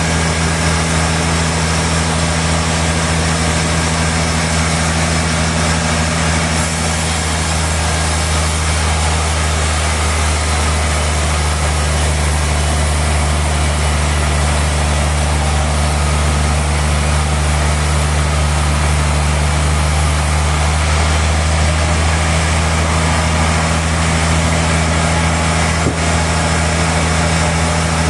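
Sawmill machinery running steadily: a constant low drone with an even hiss over it, unbroken throughout.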